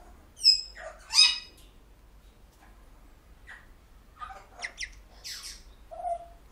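African grey parrots calling: a loud falling whistle about half a second in and a loud squawk just after, then softer short chirps and squawks from about four seconds on, ending with a brief low call.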